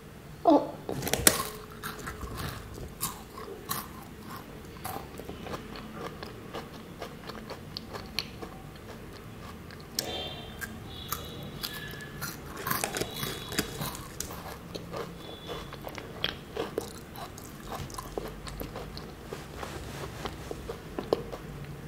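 Close-up crunching bites and chewing of a matcha-flavoured chocolate-coated wafer bar, with the sharpest crunches about a second in and softer chewing crunches after that.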